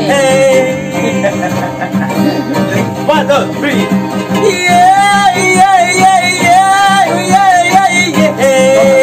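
Acoustic guitar and ukulele strummed together in a steady rhythm, with a man's voice singing a wavering melody over them and holding long notes.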